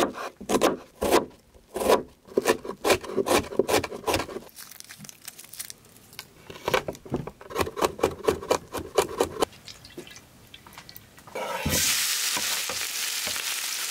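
Cleaver chopping red onion and then garlic on a wooden cutting board in quick strokes. About eleven and a half seconds in, the chopped onion and garlic hit hot oil and start sizzling steadily.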